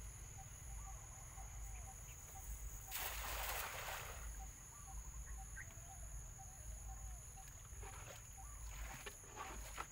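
Cast net hitting the river surface about three seconds in: a brief rushing splash of the spread net and its weighted rim, lasting about a second. Steady insect chirping and a high insect whine run underneath, with a few short splashes and knocks near the end as the net is drawn back into the boat.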